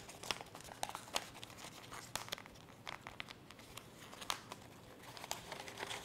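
A sheet of coloured A4 paper crackling and rustling in the hands as it is rolled into a cone, with many irregular, sharp crinkles.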